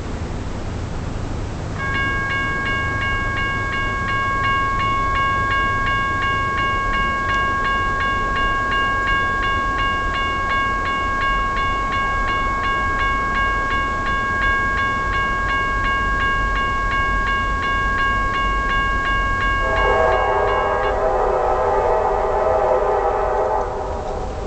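Railroad crossing warning bell ringing with rapid, steady strokes as the crossing activates, stopping near the end. As it stops, the approaching freight's lead SD70MAC locomotive sounds its horn: one chord-like blast of several tones, about four seconds long.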